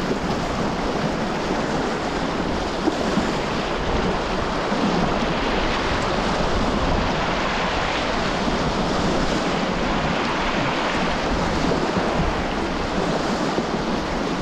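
Whitewater of a river rapid rushing steadily, an even, unbroken rush of water with no breaks.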